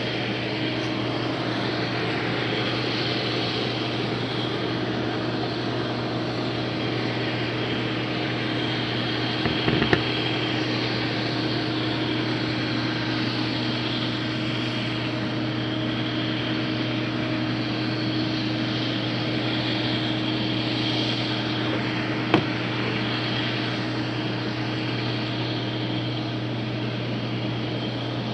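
Case IH 2577 combine running steadily while cutting wheat: a continuous engine and machine drone. Two sharp clicks, about ten and twenty-two seconds in.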